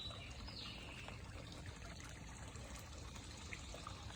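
Faint, steady trickling of water in a swimming pool.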